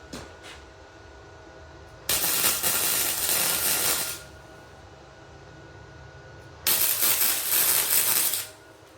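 MIG (wire-feed) welder laying two short welds on a steel turbo pipe, each a steady hissing crackle of about two seconds that starts and stops abruptly.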